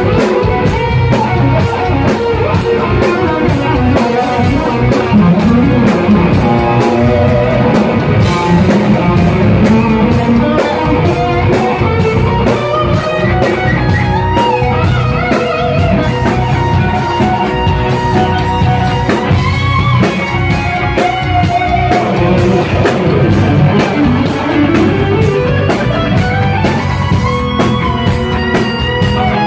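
Live instrumental rock. A lead electric guitar plays a melody with long sliding, swooping pitches over a steady drum-kit beat with cymbals.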